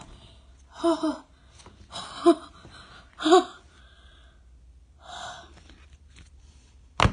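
A person's short, breathy vocal squeals, about five of them, spread through the first few seconds. A single sharp click comes near the end.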